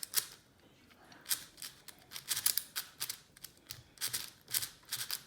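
MGC 6x6 speedcube being turned by hand: short bursts of quick plastic clicking and scraping as its layers are spun, roughly one burst every second with brief pauses between.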